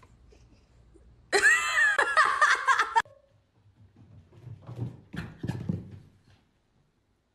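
A golden retriever, told to speak, answers with a drawn-out, wavering whine-grumble that lasts about two seconds and cuts off abruptly. Quieter, lower voice sounds follow a second later.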